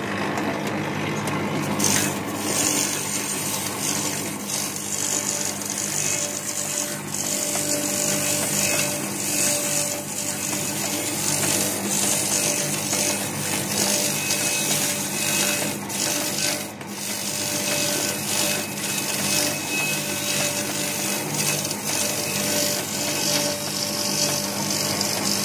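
Satay-skewer sharpening machine running. Its motor hums steadily while skewers are fed by hand against the fast-spinning grinding disc and ground to a point, giving a steady grinding hiss with scattered short ticks.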